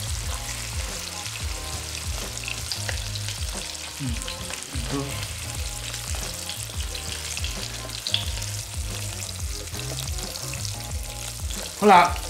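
Salmon pieces sizzling in hot oil in a non-stick wok, with the scrape and tap of a metal spatula and chopsticks turning them.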